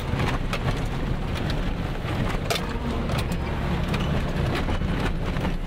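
Nissan truck's VG30 3.0-litre V6 engine running at low speed, heard from inside the cab, with scattered clicks and knocks as the truck moves slowly over rough ground.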